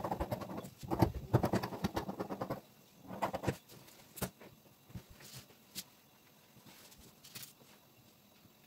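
Scissors snipping rapidly through lace fabric, a quick run of cuts over the first two and a half seconds and a few more just after three seconds. After that come only scattered light clicks and rustles as the cut lace is handled.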